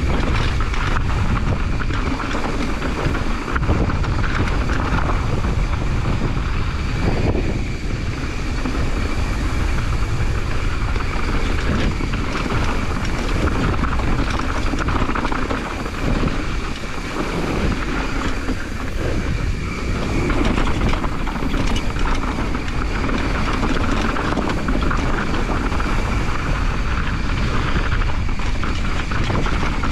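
Devinci Troy mountain bike descending a dirt downhill trail: a steady rush of wind over the microphone mixed with tyre noise on dirt. Frequent knocks and rattles come from the bike over rough ground.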